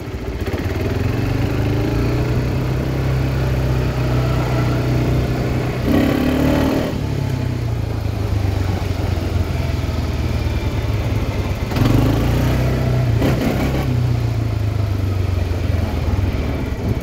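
Quad bike (ATV) engine running as it is ridden along, with the engine note rising under throttle about six seconds in and again about twelve seconds in.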